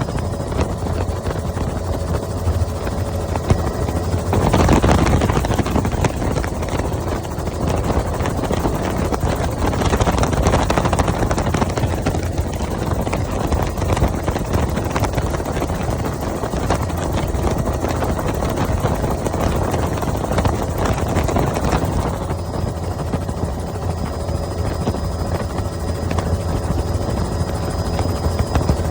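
Helicopter running steadily, a constant low rotor-and-engine drone with rushing noise over it that swells louder about four seconds in.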